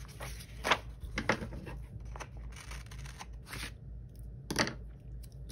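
Paper planner pages and sticker sheets being handled, with a few short, crisp snips and rustles from scissors and paper.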